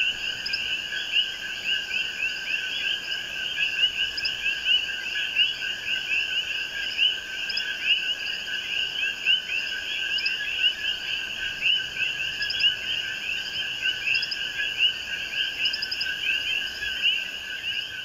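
Dense night chorus of many Puerto Rican coquí frogs calling at once: short rising chirps overlapping without a break, with a fainter, higher chirping layer above them.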